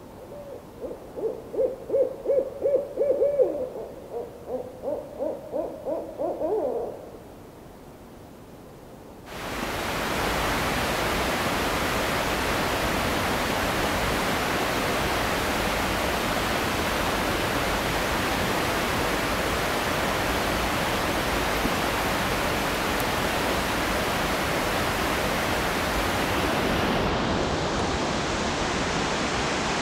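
Owl hooting in two quick runs of about four hoots a second, the second run rising in pitch at its end. A few seconds later a loud, steady rushing noise starts abruptly and carries on.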